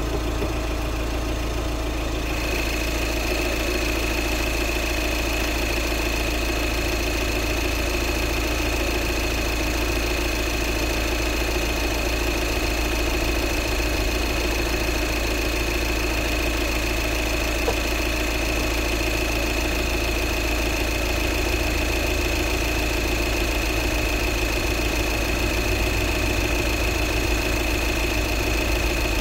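Audi A6 C7 diesel engine idling steadily while its cooling system is refilled after a thermostat replacement. A steady high whine joins in about two seconds in and holds.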